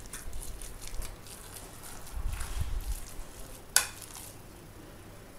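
A spoon stirring and mashing raw minced-beef filling in a bowl, with wet, crackly squelching. There is one sharp click of the spoon against the bowl a little under four seconds in.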